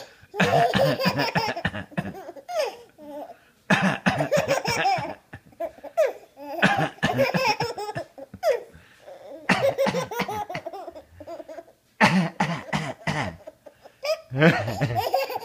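A baby boy laughing in repeated belly-laugh fits, each a second or two long, in response to a man coughing. Some of the bursts open with a short, sharp cough.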